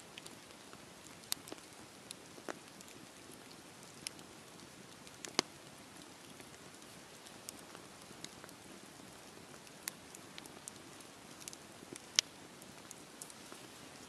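Wood fire crackling: a soft steady hiss broken by irregular sharp pops and snaps from the burning logs, with two louder snaps, one about five seconds in and one about twelve seconds in.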